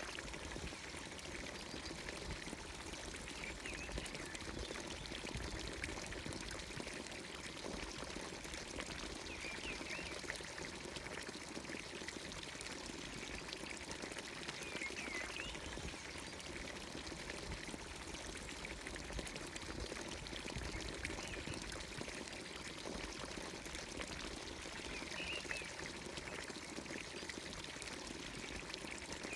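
Steady pouring of water from a traditional Anatolian village fountain's spout into its basin, unbroken throughout. A bird chirps briefly over it a few times, several seconds apart.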